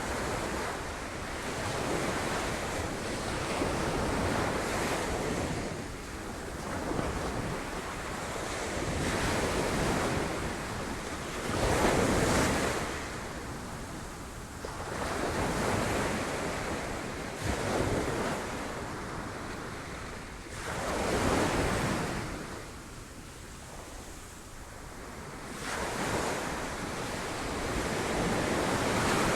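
Sea waves breaking on rocks, the surf swelling and falling back every few seconds, with the loudest breakers about twelve and twenty-one seconds in.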